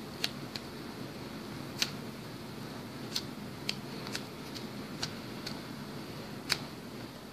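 Hands squeezing and turning a foam squishy toy with a small metal-clasped strap: scattered faint clicks, about nine at irregular moments, over a steady low hiss.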